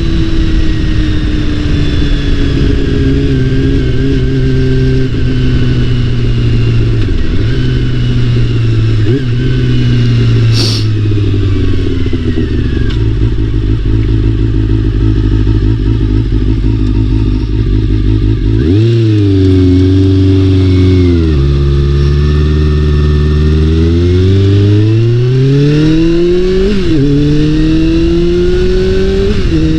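Honda CBR400RR's inline-four engine running while the motorcycle is ridden. The revs ease down slowly through the first half. In the second half they climb and drop several times through gear changes.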